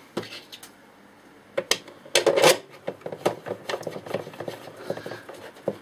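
Screws being driven with a hand screwdriver into the lid of a plastic project box, with small clicks and scrapes of handling and a louder clatter about two seconds in.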